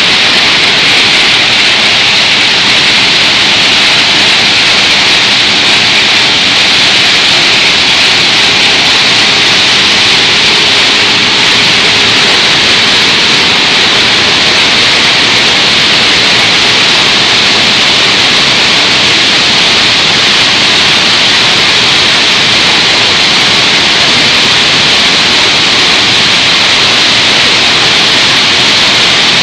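Steady, loud rushing hiss of running industrial machinery, a fan, conveyor and hydraulic baler, with no change in pitch or level and no separate knocks.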